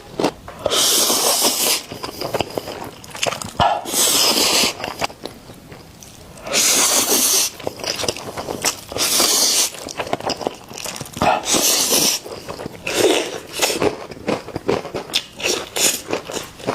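Chicken bones being bitten and chewed: a series of loud crunches, each about a second long, with sharp clicks and cracks between them.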